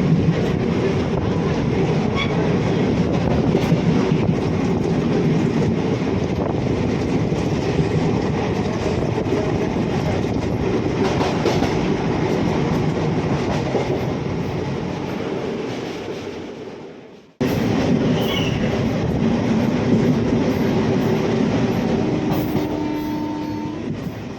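A train running along the track with a steady rumble. The sound fades out about two-thirds of the way through, then starts again at once. A short steady tone sounds near the end.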